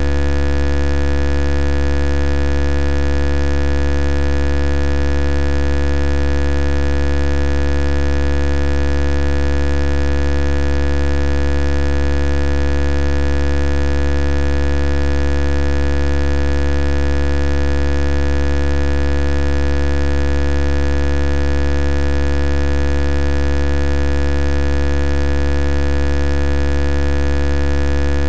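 Steady, unchanging low hum with many overtones, the same level and pitch throughout with no breaks or other events.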